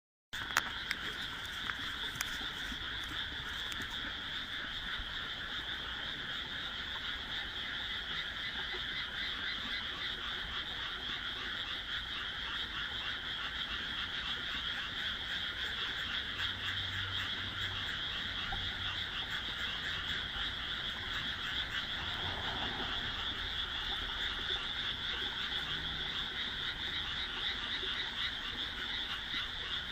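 A dense chorus of many rice-paddy frogs calling at once: fast, overlapping croaks merging into one steady wall of sound with no break.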